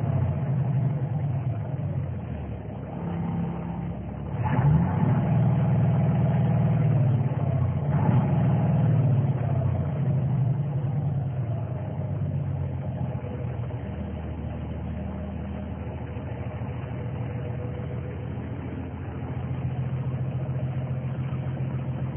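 1984 International Harvester cab-over truck's diesel engine, heard from inside the cab, revved up about four seconds in and again near eight seconds, then easing back down to a steady idle.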